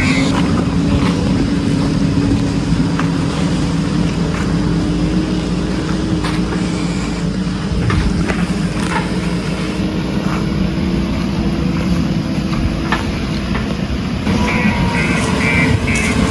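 Diesel engine of a heavy construction machine running steadily at a constant speed, with scattered clanks and knocks from the work.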